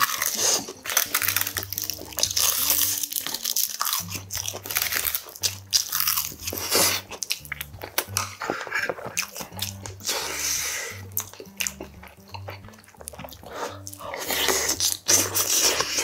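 Close-miked chewing of a mouthful of rice wrapped in seasoned seaweed, with crisp crunching and wet mouth sounds coming in irregular bursts.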